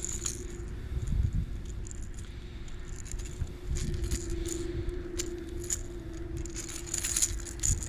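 A hard plastic fishing lure rattling and its treble hooks clicking as a hook stuck in a small bass's mouth is worked loose by hand, in irregular jangles that come thickest near the end.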